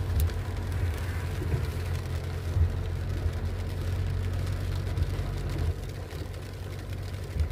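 Vehicle driving, heard from inside the cabin: a steady low rumble of engine and road noise, with a few small bumps.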